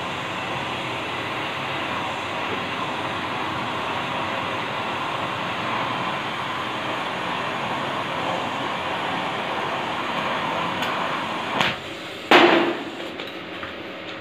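Stick-welding arc crackling and sizzling steadily as a steel electrode lays a weld joining a chain to a steel plate. The arc stops about eleven and a half seconds in, and two loud metallic knocks follow, the second ringing briefly.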